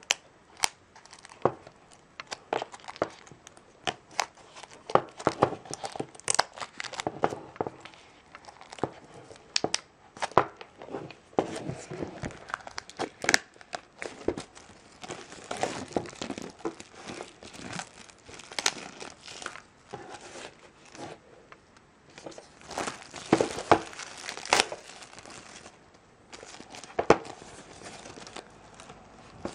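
Clear plastic shrink-wrap being picked at, torn and peeled off a DVD box set by hand: irregular crinkling and crackling in flurries, with sharp snaps as the film tears.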